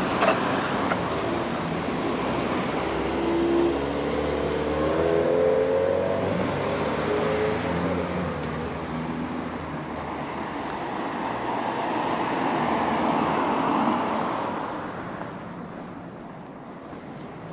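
Street traffic: cars driving past with tyre and engine noise. One passes with a low engine note a few seconds in, another swells and fades about two thirds of the way through, and the traffic gets quieter near the end.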